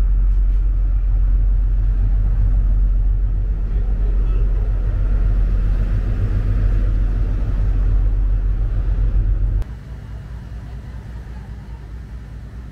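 Large passenger ferry's engines running under way, a steady low rumble with a faint hum. About three-quarters of the way through it drops suddenly to a quieter rumble.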